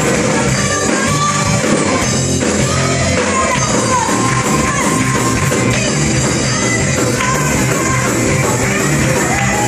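Live church worship band and singers performing a song through loudspeakers in a hall: loud amplified music with a sung melody over a steady bass-and-drum pulse.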